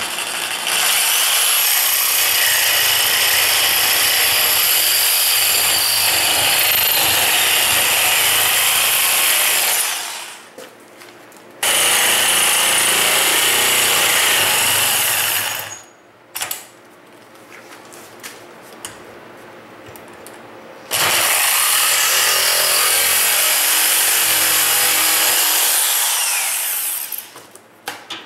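Electric jigsaw with a fine-toothed metal-cutting blade sawing teeth into the end of a metal 2-inch pipe nipple held in a vise. It runs loud in three long cuts, stopping near ten seconds, starting again about two seconds later, stopping near sixteen seconds and running again from about twenty-one seconds until shortly before the end.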